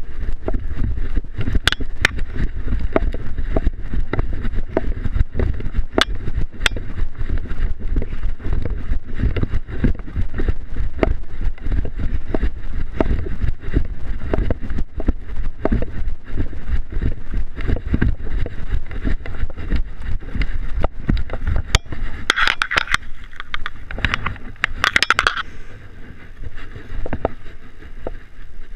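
Zipline trolley rolling along its steel cable: a steady noise heavy in the low end, dotted with many small clicks and rattles. A higher-pitched noise lasts about three seconds near the end.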